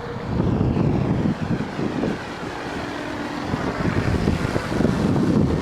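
Electric FreeWing P-51D Mustang RC warbird in flight at about three-quarter throttle, its propeller and onboard engine-sound module running steadily, with wind buffeting the microphone.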